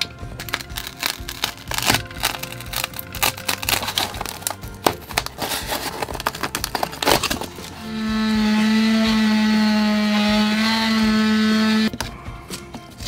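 Knife cutting and scraping through the camper's floor covering: a busy run of irregular clicks and scrapes. About eight seconds in, a louder steady buzz starts, holding one pitch, and cuts off suddenly about four seconds later.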